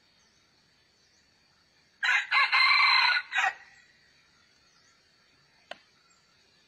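Rooster crowing once, a loud harsh call lasting about a second and a half, over a steady high insect drone. A brief sharp click follows about two seconds later.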